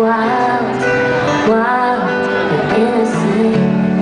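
Live country music: a female vocalist singing over a strummed acoustic guitar.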